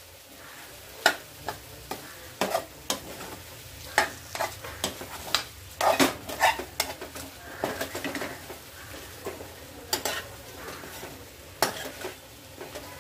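A steel spoon stirring and tossing sliced potatoes in a black kadai, knocking and scraping against the pan at irregular moments, over a faint sizzle of frying. Spice powders are being mixed into dry-fried potatoes on a low flame.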